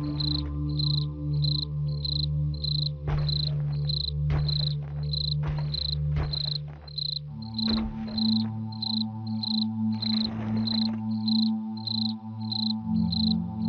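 Crickets chirping in an even rhythm, about two to three chirps a second, over a low droning chord of held notes that shifts to a new chord about halfway through and again near the end: a horror ambience backing track.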